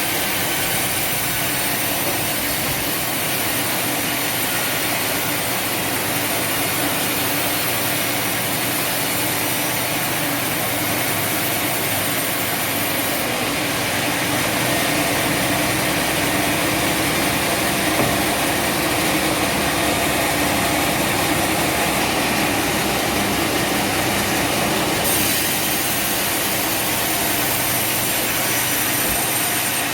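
Sawmill machinery running steadily: a dense, even mechanical noise without pauses, slightly louder in the second half.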